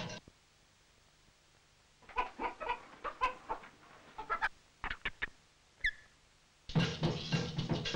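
Cartoon sound effects for a stop-motion creature. About two seconds in, a run of short clucking, chicken-like calls starts, followed by a few sharp clicks and one brief falling whistle. Music comes back in near the end.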